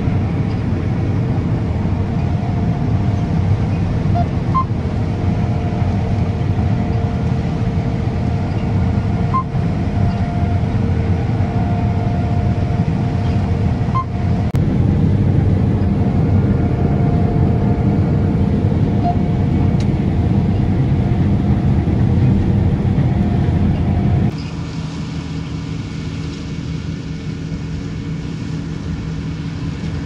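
John Deere S660 combine harvester running steadily: a deep diesel rumble with a steady whine over it. About four-fifths of the way through, the sound drops abruptly and the rumble and whine largely fall away.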